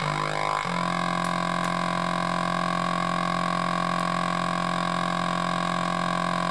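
Atari Punk Console, a two-555-timer DIY noise synth, making a buzzy electronic tone: its pitch slides as a potentiometer is turned, then under a second in it settles into one steady drone.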